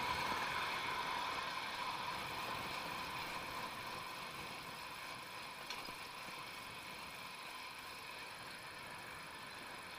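Steady riding noise of a bicycle on an asphalt city street, getting gradually quieter, with a single short click about six seconds in.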